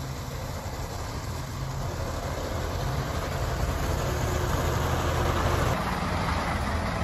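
A large vehicle's engine running steadily with a low hum.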